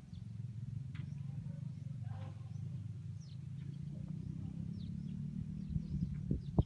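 Birds chirping faintly in short high calls over a steady low hum, with a sharp knock at the very end.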